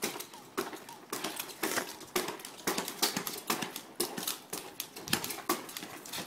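Rapid, irregular tapping and clicking, several sharp taps a second, uneven in loudness.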